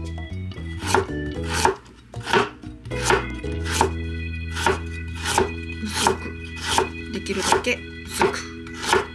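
Chef's knife slicing fresh ginger root thinly on a wooden cutting board: a steady run of blade knocks on the board, about two a second.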